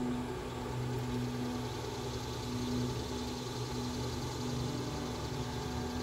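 Steady low mechanical hum of a running motor, holding an even level throughout.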